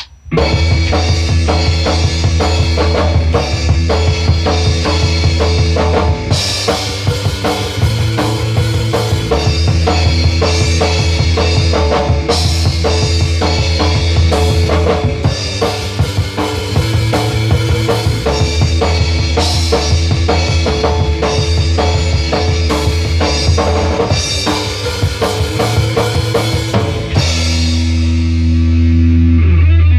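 Loud rock music driven by a full drum kit, with kick drum, snare and cymbals over steady low notes. About three seconds before the end the drums stop and a held low chord rings on.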